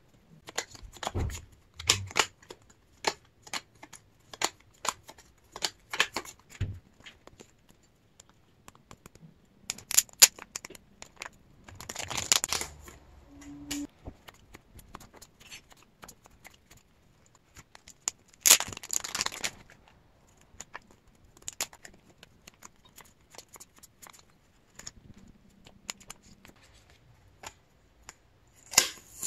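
Clear plastic photocard sleeves and packaging crinkling and rustling as photocards are handled and sorted, with many light clicks and taps of cards and toploaders, and a few longer crinkly rustles along the way.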